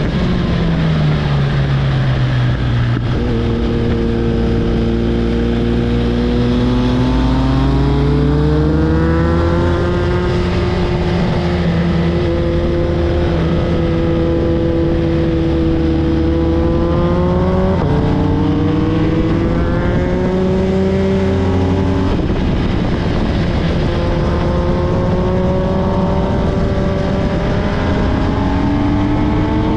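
A vehicle engine accelerating through the gears: its pitch climbs slowly, then falls sharply at gear changes twice in the second half, over steady road and wind noise.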